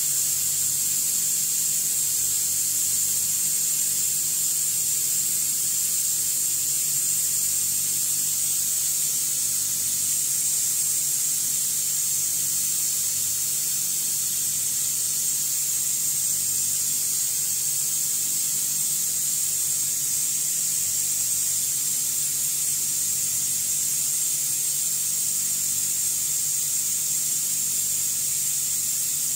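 Steady, unchanging high hiss with a low hum underneath.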